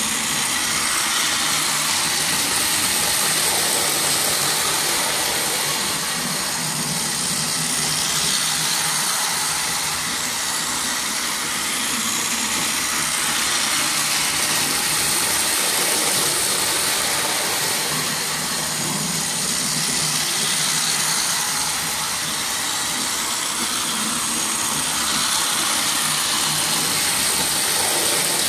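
Battery-powered toy train running steadily on plastic track: a continuous high whirring from its motor and wheels, growing louder and softer by turns.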